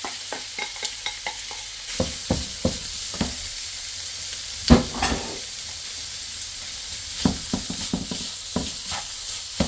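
Beef and minced carrot sizzling in hot oil in a frying pan. A spatula clicks and scrapes against the pan as the food is sautéed, with one louder knock about halfway through.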